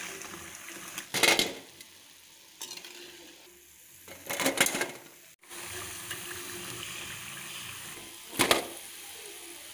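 Oil sizzling steadily as urad-dal batter fritters deep-fry, with a slotted spatula scraping and clinking against the pan and a steel draining plate three times as the fritters are lifted out.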